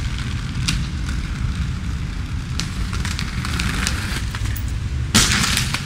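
Inline skate wheels rolling over pavement: a steady low rumble with crackle and a few light clicks. Near the end comes a harsh noisy burst lasting about half a second.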